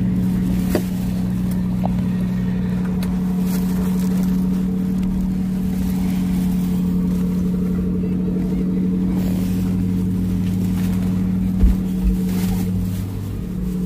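Small leisure motorboat's engine running steadily as the boat pulls away from the quay, with a couple of low thumps near the end.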